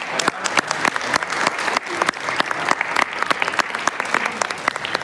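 A crowd applauding, with many distinct hand claps overlapping in an irregular patter that eases slightly near the end.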